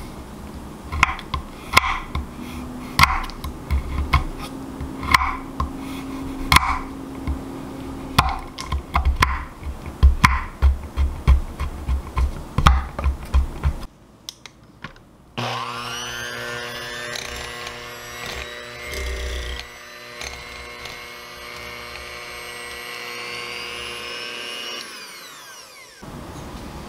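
A knife chops dark chocolate on a wooden cutting board, with repeated knocks of the blade on the board that come faster in the second half. After a short pause, an electric hand mixer spins up, runs steadily while its beaters cream softened butter in a glass bowl, and winds down near the end.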